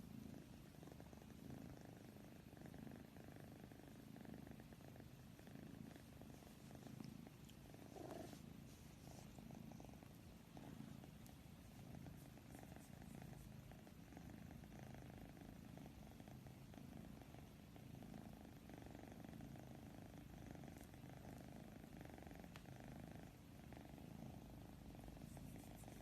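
A domestic cat purring steadily and faintly.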